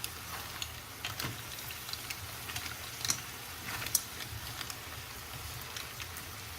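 Mussels cooking in a hot wok: a steady sizzle with scattered crackles and pops, a few louder ones about 1, 3 and 4 seconds in.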